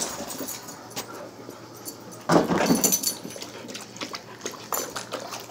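German Shepherd puppies play-fighting over a plastic bowl on a concrete floor: scattered clicks and scrapes, with one louder, rough scuffle of under a second about two seconds in.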